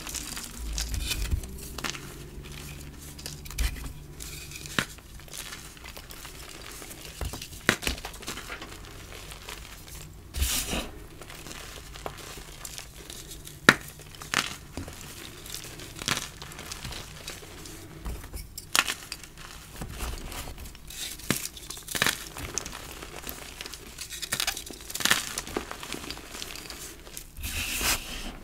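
Freshly dyed gym chalk blocks crumbled and crushed by hand: irregular crisp crunches and crackles of breaking chalk and powder, with one sharp loud snap about halfway through.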